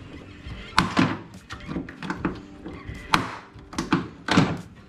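A hand rivet tool setting aluminium rivets through a gas-tank strap mount into the boat's aluminium hull: a series of sharp, separate knocks and clicks as the handles are squeezed and the rivet stems snap.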